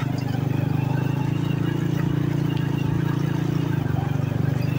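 Old motorcycle's engine running at a low, steady speed with an even, rapid putter.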